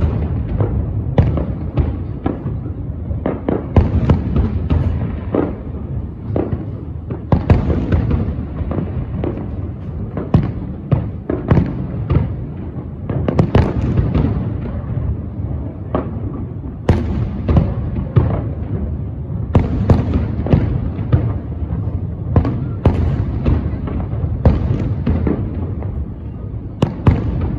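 Aerial fireworks shells bursting one after another at an irregular, rapid pace, sharp booms and cracks over a continuous low rumble.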